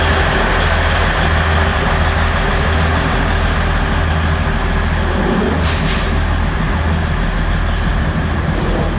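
Matheran Hill Railway narrow-gauge train's diesel locomotive running steadily with a low hum, with two short hisses, about six seconds in and near the end.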